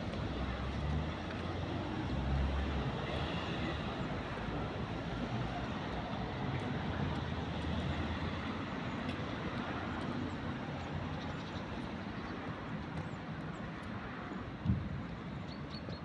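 Steady roar of outdoor urban background noise, like distant traffic or an aircraft passing overhead, with a few faint bird chirps over it. A single low thump about three-quarters of the way through.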